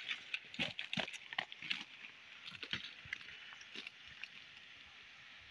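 Footsteps and brushing through forest undergrowth: irregular crunches and snaps of leaf litter, twigs and leaves. They thin out about four seconds in, leaving a steady faint hiss.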